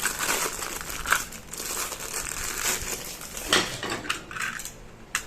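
Packaging crinkling and rustling as a vegetable chopper's parts are unpacked, with irregular handling knocks and a few sharp clicks near the end.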